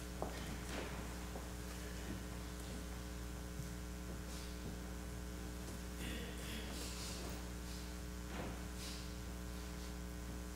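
Steady electrical mains hum in the sound system, with a few faint rustles and light knocks, including a brief rustle a little past the middle.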